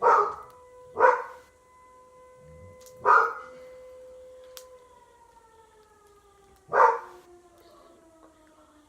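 A dog barking four times, single short barks at the start, about a second in, about three seconds in and about seven seconds in. Under the barks runs a continuous wailing tone, like a distant siren, that holds steady and then slowly falls in pitch from about the middle.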